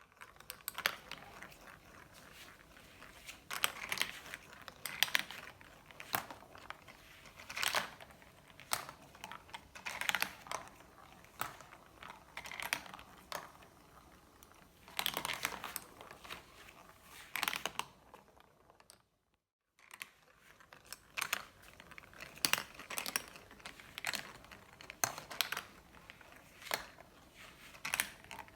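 Glass marbles rolling and clacking down a marble-run track, with irregular clusters of clicks and rattles. The sound drops out briefly about two-thirds of the way through.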